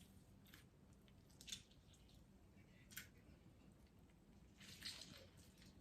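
Near silence with about three faint wet squishes a second or so apart: a juiced lemon being handled in a bowl of brine.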